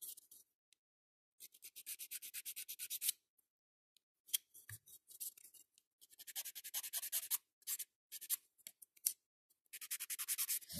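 Hand nail file rasping across an acrygel nail extension in several quick bursts of rapid back-and-forth strokes, about ten a second, with short pauses between bursts.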